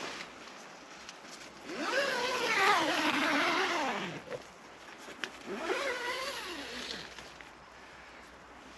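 A motor vehicle's engine revving, its pitch rising then falling, about two seconds in; it comes again a little after five seconds, shorter and quieter.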